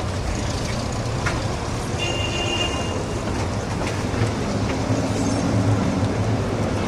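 City street traffic with a tram approaching along its tracks: a steady low rumble of wheels and motors that grows a little louder near the end. A brief high-pitched tone sounds about two seconds in.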